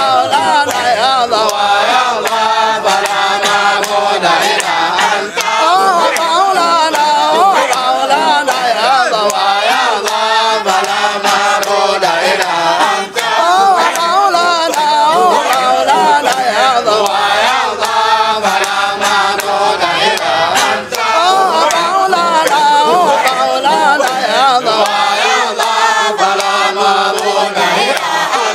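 Group of men chanting a Sufi dhikr, lead voices singing into microphones with the others joining in a continuous devotional chant.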